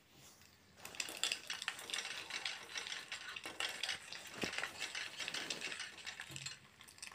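A metal spatula scraping and stirring scrambling eggs around a stainless steel kadai, with a light sizzle of the eggs frying in oil. The quick scrapes and taps start about a second in and keep on until just before the end.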